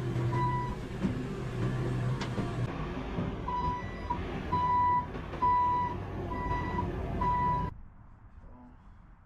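Bobcat compact track loader's diesel engine running with its reversing alarm beeping repeatedly. The beeps pause for about three seconds near the start, then resume, and the engine and beeping cut off suddenly near the end.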